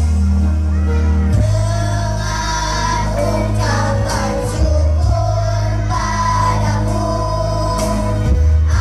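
Children's choir singing a school hymn over a musical accompaniment with a heavy, sustained bass line.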